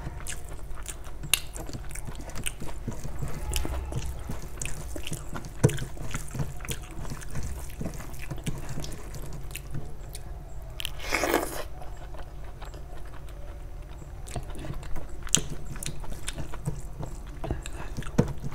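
Close-miked chewing and wet mouth sounds of a person eating rice and egg curry by hand, with frequent small clicks and smacks. One longer wet sound comes a little past the middle.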